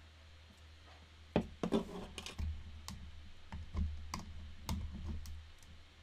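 A run of irregular sharp clicks and light taps over a steady low hum. The clicks start about a second and a half in and stop shortly before the end.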